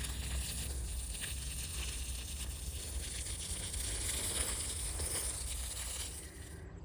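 Water spraying onto soil and young plants in a raised bed, a steady hiss and patter as the bed is given a good soaking, stopping near the end.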